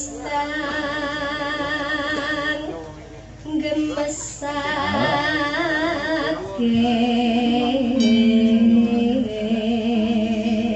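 A sinden, a female Javanese singer, sings a tembang in pelog nem into a microphone, holding long wavering notes. She breaks off briefly about three seconds in, then carries on singing.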